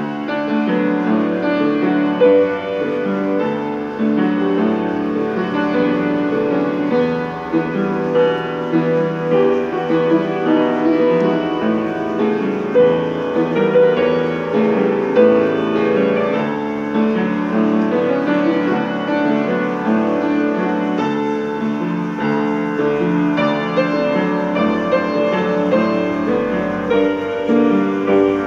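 Upright piano played solo: a continuous stream of notes, strongest in the middle register, without any pause.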